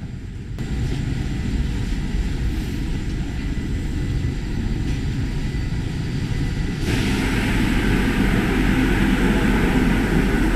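Industrial laundry machinery, including large front-loading washing machines with their drums turning, running with a loud steady mechanical drone that grows louder about seven seconds in.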